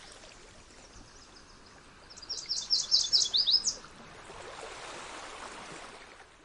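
A yellow-rumped warbler singing: one quick trill of about a dozen high, sliding notes, starting about two seconds in and lasting about a second and a half. Under it is a steady outdoor background hiss.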